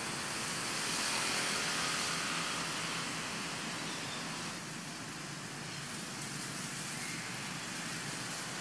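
Steady hiss of outdoor background noise with no clear single source, swelling a little about a second in and easing off after about four seconds.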